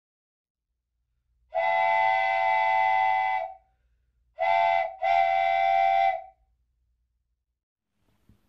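Steam train whistle sounding three blasts: a long one, a short one, then another long one, each a steady chord-like tone.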